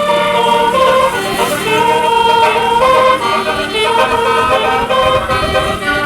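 Bus telolet horn, a 36-note Basuri multi-trumpet air horn, playing a melody: several tones sound together and step from note to note, over a low rumble.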